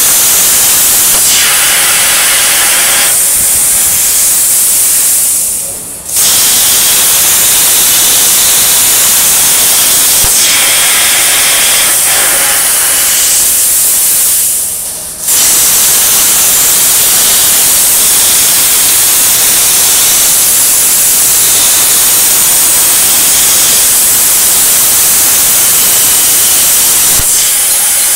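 CNC plasma cutter torch cutting 11-gauge mild steel: a loud, steady hiss of the arc and air jet. It fades away twice, about five and fourteen seconds in, as a cut finishes, then snaps back on suddenly as the torch starts the next cut.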